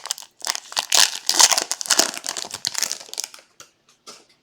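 Plastic-foil trading card pack wrapper crinkling and crackling as it is torn open and handled, stopping after about three seconds with a few small clicks.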